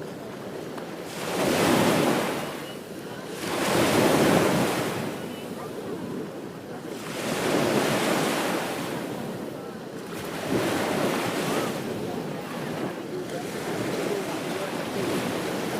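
Ocean waves breaking on a beach, the surf swelling and washing out in repeated surges, with three louder breakers in the first half.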